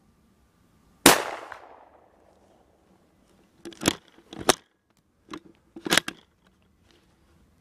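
A single rifle shot about a second in, from a Bars 4-1 bolt-action rifle in .223 Remington, with a short rolling echo. Several quieter sharp clicks and knocks follow a few seconds later.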